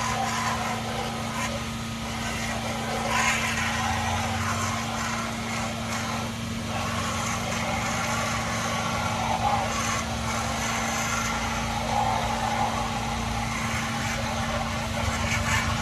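A pressure washer's engine running steadily with an even hum, under a constant hiss of noise.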